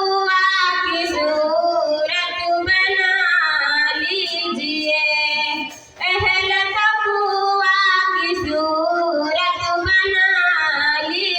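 A single voice singing a nazm, an Urdu devotional poem, in long, melodious, drawn-out phrases, pausing briefly for breath about six seconds in.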